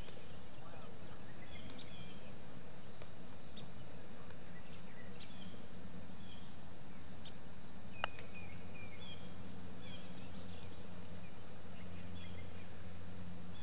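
Birds chirping here and there over a steady outdoor hiss, with a single sharp click about eight seconds in: a putter striking a golf ball.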